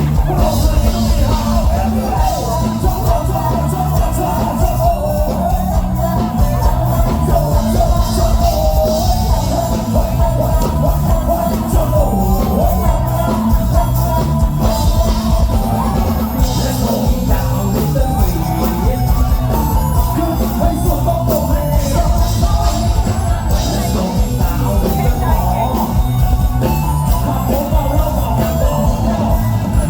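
Loud live band music with a female singer, over heavy bass and a steady beat.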